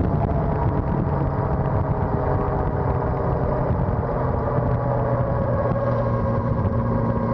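Suzuki GSX-R1100 WP's liquid-cooled inline-four engine running steadily under way, heard from on board the motorcycle with wind rush over the fairing.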